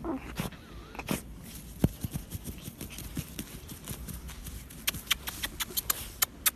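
A dog digging in dry soil, its paws scraping and scratching at the earth in a string of short, sharp scratches that come thicker and faster near the end.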